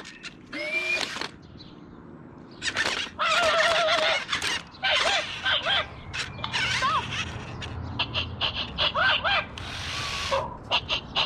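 Anko robot dog toy's speaker playing electronic dog sounds: a string of short squeaky yips and barks that slide up and down in pitch, with a couple of short hissing bursts.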